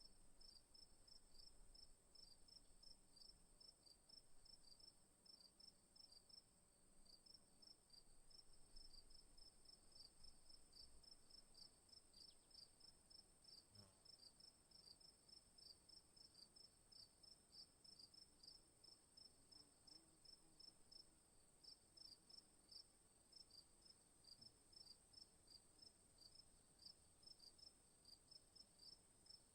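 Faint night chorus of crickets: rapid, regular chirping over a continuous high-pitched insect trill.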